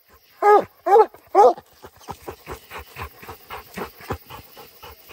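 Redbone coonhound barking treed at a raccoon up the tree: three loud barks in quick succession, then rapid panting at about four breaths a second.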